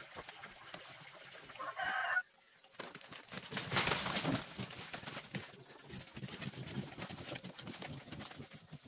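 Dry bamboo-shoot husks tipped out of a large woven bamboo tray, a loud rustling clatter about four seconds in, then scattered light rustling as they land. A chicken clucks briefly shortly before.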